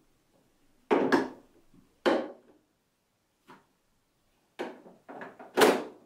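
Hard plastic clicks and knocks from an Inventor Epic BG62 vacuum cleaner as its HEPA filter is slid into the filter compartment and the grille cover is snapped shut. There are single knocks about a second and two seconds in, then a quick run of clicks near the end with the loudest snap.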